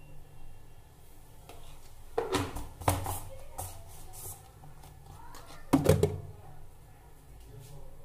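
A few knocks and thuds from a plastic kitchen container and spoon being handled, in two clusters: about two to three seconds in and again near six seconds.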